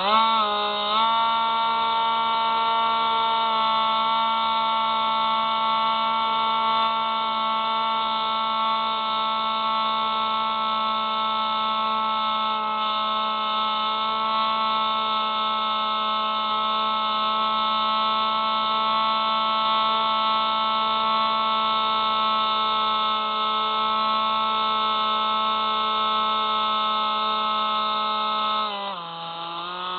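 Electric motor and propeller of a Spyhawk FPV model plane running at high throttle: a steady whine that rises quickly at the start, then slows with a drop in pitch near the end.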